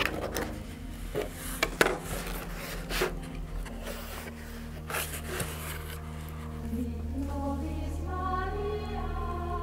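Packing tape on a cardboard box being slit and the flaps torn and pulled open: a few sharp rips and scrapes in the first three seconds. Background music plays underneath and grows fuller near the end.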